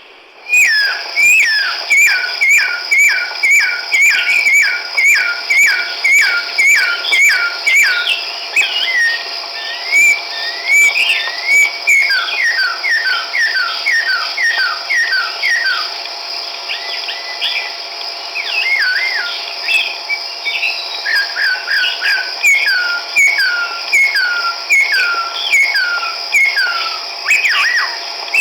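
Chestnut-backed laughingthrush calling: a long series of clear whistled notes, each sliding downward, about two a second, with a few rising notes mixed in along the way. A steady high tone runs underneath.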